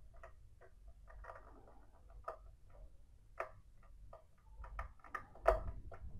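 Irregular small clicks and scratches of a BC547 transistor's leads being worked and pressed into the plastic hFE test socket of a digital multimeter. The loudest click comes about five and a half seconds in, as the transistor seats.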